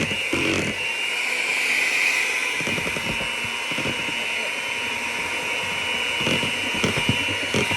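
Electric hand mixer running steadily, beating cupcake batter in a bowl, with a constant whine and an irregular low rattle.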